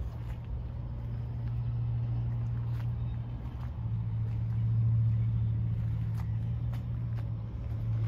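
An engine running steadily with a low hum, a little louder around the middle, with a few faint clicks.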